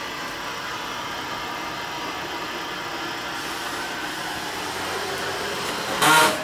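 A steady mechanical drone runs inside the motorhome's cabin. Near the end, a short, loud pitched sound cuts through it.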